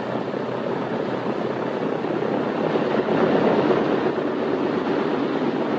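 The radial engines of a four-engine B-17 bomber running steadily at low power as it rolls out on the runway after landing: a steady, noisy drone.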